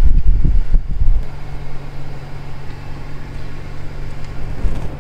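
Car driving over a rough, partly unpaved mountain road: a low engine-and-tyre rumble, heavy and uneven for the first second or so, then steadier.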